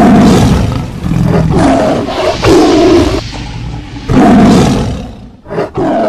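Lion roar sound effect from an animated logo sting: several loud roars in a row, each lasting about a second, with a shorter growl near the end.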